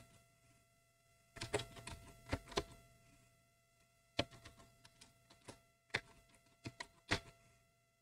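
Faint keystrokes on a computer keyboard typing an email address: a quick run of key clicks, then single irregular taps, over a faint steady hum.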